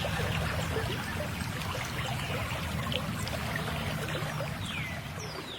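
Water splashing and trickling in a steady wash of small splashes; near the end two short falling chirps.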